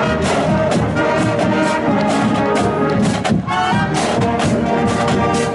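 A marching brass band playing, trombones and trumpets over a regular beat.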